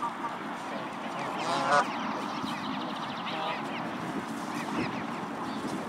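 Canada goose giving one loud honk about a second and a half in, over the repeated high peeping of goslings.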